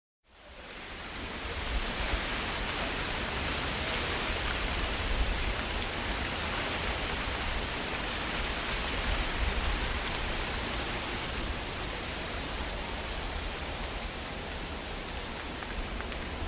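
Wind blowing through trees: a steady rushing rustle of leaves with a low rumble underneath, fading in over the first second or two.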